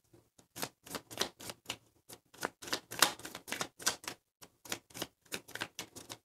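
A deck of tarot cards being shuffled by hand: a quick, uneven run of card clicks and slaps as the cards are pushed through the hands.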